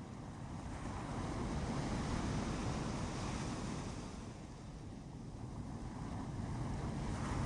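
Ocean surf breaking and washing on a beach. It swells about two seconds in, eases off around the middle, and builds again near the end.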